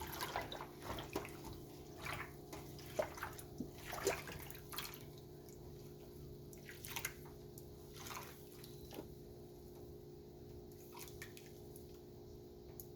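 Small splashes and drips of water as hands feel around in a container of soapy water for a small part, busy for about the first five seconds and then only now and then, over a low steady hum.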